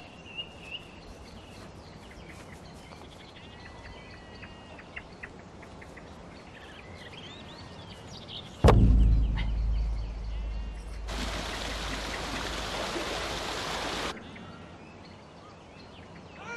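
Faint birdsong, then a sudden heavy thud as a blue plastic water butt is brought down, dying away over a couple of seconds. A loud rushing hiss follows for about three seconds and stops abruptly.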